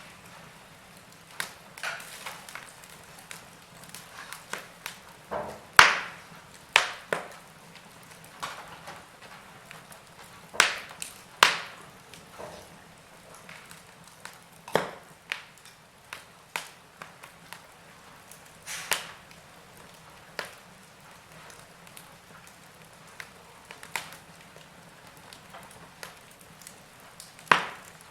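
Logs burning in a fireplace, crackling: irregular sharp pops and snaps of varying loudness over a faint steady hiss, with a few louder pops spread through.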